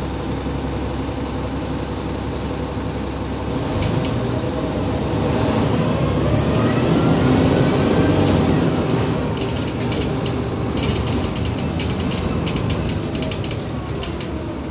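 City bus heard from inside the passenger saloon: the engine running, then pulling harder from about four seconds in with a rising whine from the drivetrain. In the second half, light clicking rattles from the interior fittings join it.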